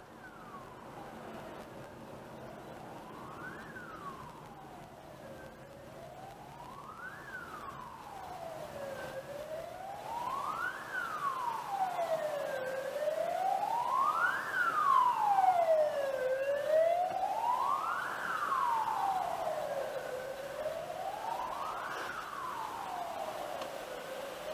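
An emergency vehicle's siren wailing, its pitch slowly rising and falling about once every three and a half seconds, growing louder toward the middle and then fading a little, heard from inside a car in traffic.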